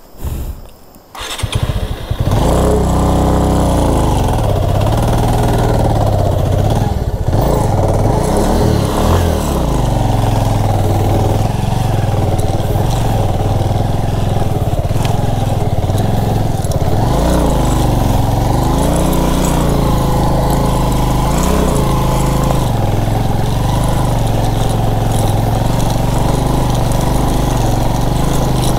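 Motorcycle engine running under load on a steep uphill climb, its revs rising and falling several times. The engine sound comes in loud about two seconds in and then runs steadily.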